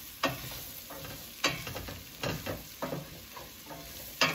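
Wooden spoon scraping and knocking against a stainless steel stockpot as diced sweet potatoes are stirred, over a steady sizzle of frying in the pot. The strokes come irregularly, about once a second, with the loudest near the end.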